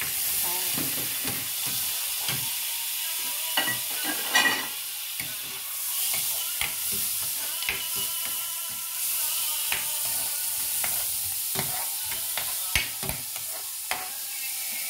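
Oil sizzling steadily as sliced garlic fries in a nonstick pan, while a metal spatula scrapes and taps against the pan to stir it. The stirring strikes are loudest about four seconds in.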